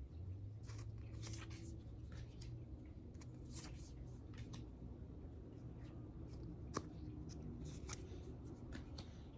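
Oracle cards being slid and flipped by hand: faint, scattered rustles and scrapes of card stock, with one sharp click about seven seconds in.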